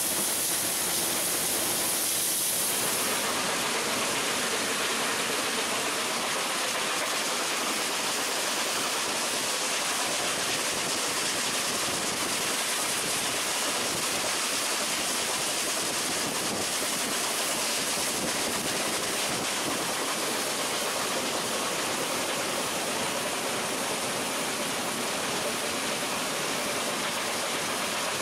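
Steam locomotive 498.104 running at speed, heard from its cab with the side window open: a steady, loud rushing of wind and running gear with no distinct exhaust beats. A high hiss sits on top for the first three seconds or so, then stops.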